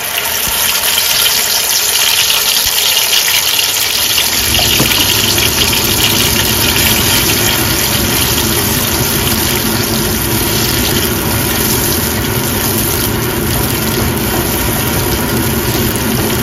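Onion, tomato and green-chilli paste sizzling hard as it hits hot mustard oil in a wok and is stirred. The steady frying hiss starts suddenly, and a deeper rumble joins about four seconds in.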